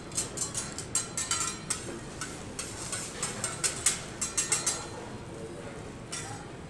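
Metal hibachi spatulas clicking and tapping against the steel teppan griddle in a quick, uneven run of taps that stops about five seconds in.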